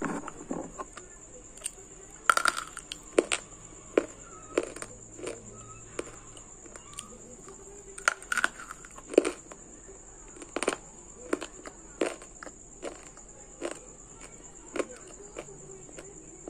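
Multani mitti (Fuller's earth clay) being bitten and chewed close to the microphone: a run of sharp, irregular crunches, some in quick clusters.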